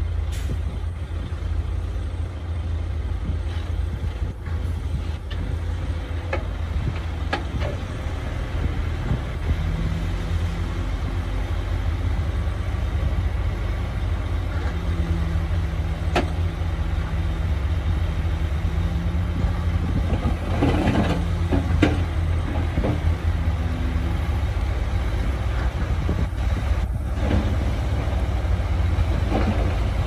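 Heavy diesel machinery running steadily with a low rumble. A steady hum joins about ten seconds in and fades after about twenty seconds, with a few short clanks along the way.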